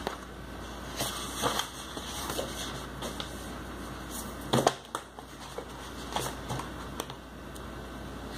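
Rustling and light taps of a paperback book and loose paper sheets being handled, turned over and opened. A sharper knock about halfway through is the loudest.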